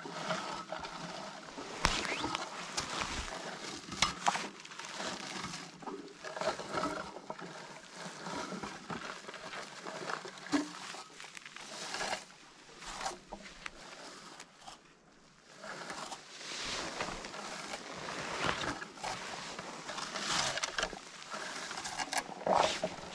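Irregular rustling and light clicks close to the microphone, from hands and clothing moving through low shrubs while picking wild blueberries.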